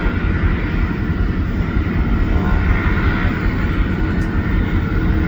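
Seaplane's propeller engine running steadily, with a strong low rumble.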